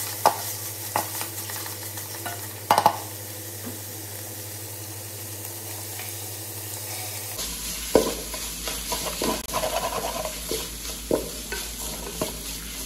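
Wooden spatula stirring and scraping shredded chicken against the side of an aluminium pot, over a steady sizzle of sautéing in oil. The scrapes and knocks come in bunches: a few near the start, a lull through the middle, then livelier stirring in the second half.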